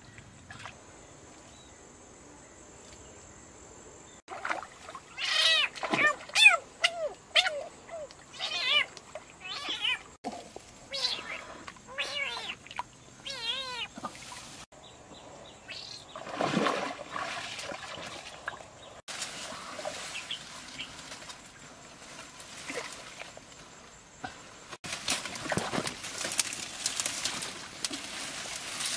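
A small domestic animal's whining cries: short, high, wavering calls repeated many times from about four seconds in, thinning out after about fourteen seconds. A steady rustling noise comes in near the end.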